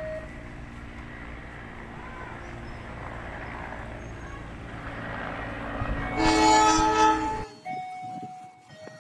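CC201 diesel-electric locomotive's horn sounding one loud blast of several tones about six seconds in, lasting over a second and cutting off abruptly. Before it, a steady low rumble of the approaching train.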